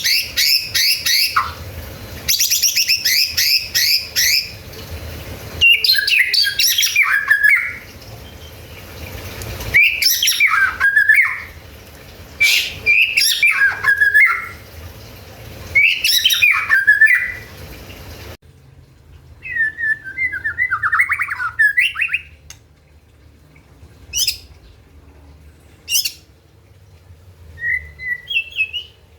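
White-rumped shama (murai batu) singing loud, varied phrases of fast trills and whistles, one burst every two seconds or so. After about eighteen seconds the background hiss drops away and the song turns to sparser, quieter calls and short whistled notes.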